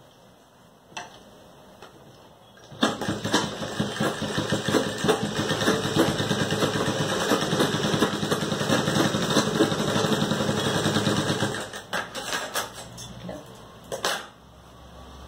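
Sewing machine stitching a seam in a fabric face mask: a few seconds in it starts and runs steadily for about nine seconds, then gives a few short bursts, with a sharp click near the end.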